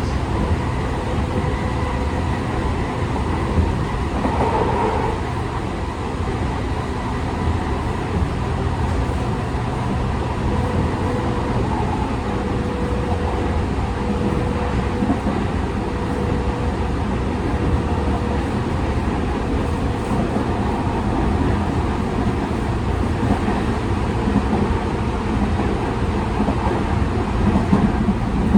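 Tokyu 5000 series electric train running, heard inside a motor car: steady rumble of wheels and bogies under the floor with a faint steady whine from the Hitachi IGBT-VVVF inverter and TKM-98 traction motors.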